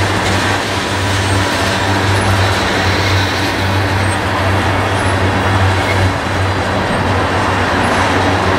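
Tank cars of a crude oil train rolling past close by: a steady, loud rumble of steel wheels on the rails.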